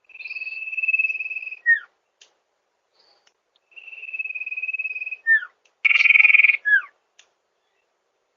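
Sirtu songbird singing three phrases. Each is a long, even trilled note followed by a quick downward slurred whistle. The third phrase, about six seconds in, is a louder, harsher rasp.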